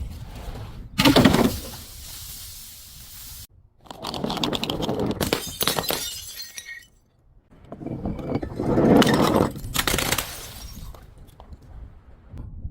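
Glass bottles being crushed and shattering: a sudden loud break about a second in, then two more spells of crunching and crackling glass, the second and third starting at about four and about eight seconds in.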